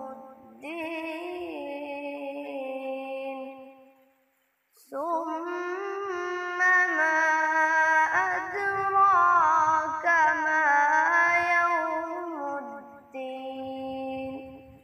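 A boy reciting the Quran in drawn-out melodic tajweed chant, holding long, ornamented notes that waver and glide in pitch, with a short pause about four seconds in.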